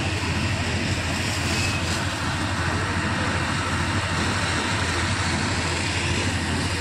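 A steady, unbroken machine roar with a constant low hum underneath, from fire-tender pumps running and feeding the hoses.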